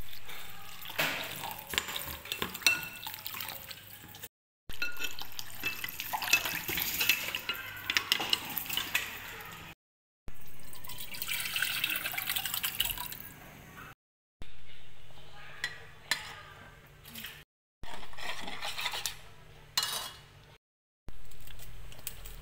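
Cooking sounds in several short segments cut off by abrupt silences: a metal spoon clinking and scraping against a ceramic bowl while mixing a wet vegetable batter, then a thick liquid mixture poured into a steel pot, and a pot of soup bubbling on the stove.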